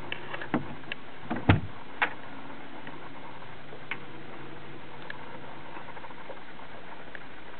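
A few short knocks and clicks in the first two seconds, the loudest about one and a half seconds in, then only the odd faint tick, all over a steady hiss.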